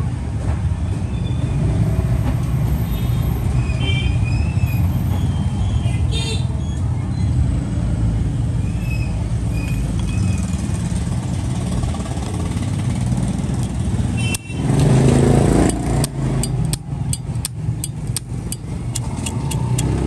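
Steady low rumble of street traffic. About fourteen seconds in there is a louder burst of noise, followed by a quick run of sharp clicks.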